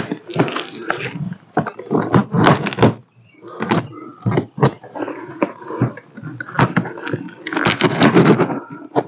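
Cardboard shipping box being cut and torn open along its packing tape with a hand tool: a run of short, irregular scraping and tearing strokes.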